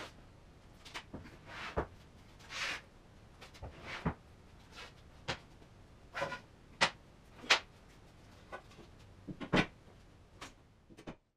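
Cut wooden boards being handled and stacked on a workbench: a scattering of sharp wooden knocks and clacks, about half a dozen loud ones, with softer sliding and shuffling between them.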